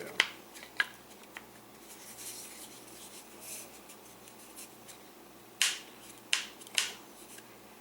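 Rare-earth magnets in the plywood dust hood snapping together with sharp clicks: three near the start, rubbing and handling in between, and three louder clicks near the end as the parts are fitted and pulled apart again.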